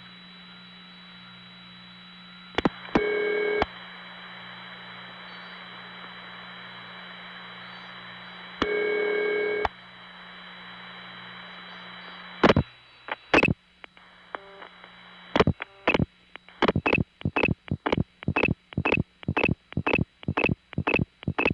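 Long-distance telephone line audio over hiss and hum: two bursts of ringing tone about six seconds apart, then clicks and a fast, even series of pulses near the end. The call sounds normal as it goes through the Norfolk crossbar tandem to the Stromberg XY exchange.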